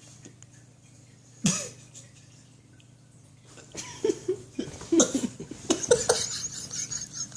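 Yorkshire Terrier snorting and snoring in its sleep: one sharp snort about a second and a half in, then a run of short, irregular snuffles and snorts from about four seconds in, over a steady low hum.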